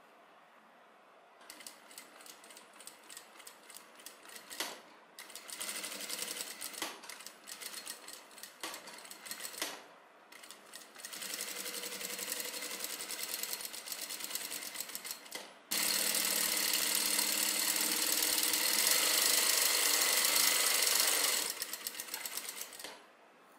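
Sewing machine stitching in short spurts with brief pauses, then running steadily. About two-thirds through it jumps suddenly louder for a long continuous run, then tapers off and stops just before the end.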